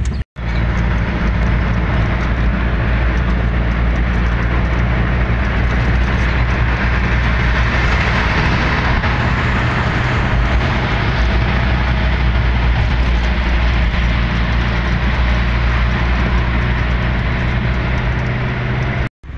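Steady cabin noise of a delivery van driving along a multi-lane road: a low engine drone under tyre and road noise. A split-second dropout just after the start and another just before the end.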